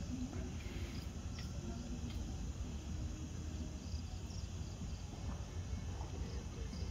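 Faint cricket chirps over a steady low rumble.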